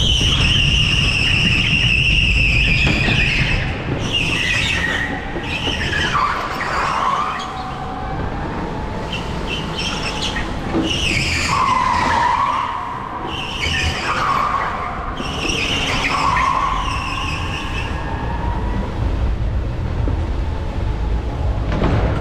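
Electric rental go-kart cornering hard on tarmac, its tyres squealing about four times. The first squeal lasts a few seconds, and later ones slide down in pitch. Under them runs a steady low rumble of the kart rolling.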